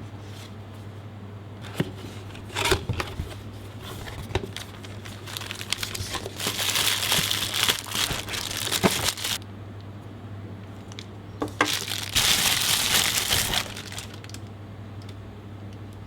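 Lens box packaging being opened by hand: wrapping crinkles in two long spells, about six seconds in and again about twelve seconds in, with scattered clicks and knocks of handling between them, over a steady low hum.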